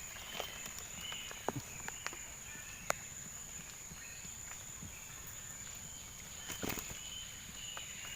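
Outdoor ambience: a steady high-pitched drone with faint short calls over it, broken by scattered sharp knocks and clicks, the loudest cluster about six and a half seconds in.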